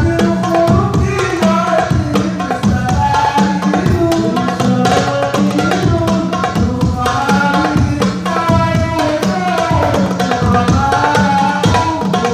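Hadrah percussion ensemble playing: darbuka goblet drum and rebana frame drums beating a quick, busy rhythm, with a melody line over the drums.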